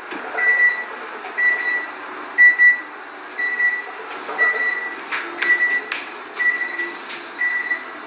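Electronic appliance beeper sounding one short, high beep about every second, eight times in all: the beeping that someone unable to hear it is trying to trace. A few faint knocks and clicks come between the beeps in the second half.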